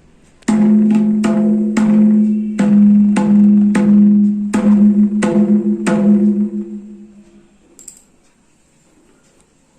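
Santali mridanga (hand drum) struck by hand about a dozen times in an uneven rhythm, every stroke ringing at the same steady pitch. The strokes stop about six seconds in and the ring dies away over the next second or so. This is a sound check for an even tone.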